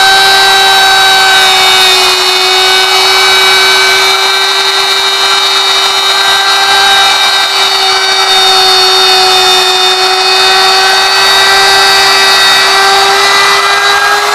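Electric wood router swung on a trammel, cutting a curved groove through wood: a loud, steady whine from the motor over the noise of the bit cutting the wood.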